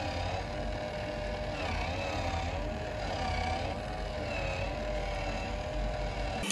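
Small electric motor of a coin-eating face piggy bank running as the mouth chews and swallows a coin, a steady hum with a whine that wavers up and down.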